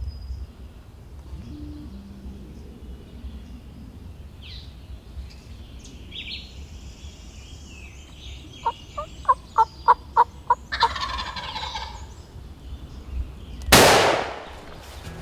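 Wild turkey gobbler gobbling, a rattling call that comes after a quick run of about eight short notes, with small birds chirping. A loud, sharp bang near the end is the loudest sound.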